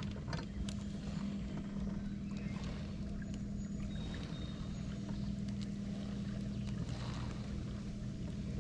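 A boat's electric trolling motor running with a steady low hum, with a few faint light ticks over it.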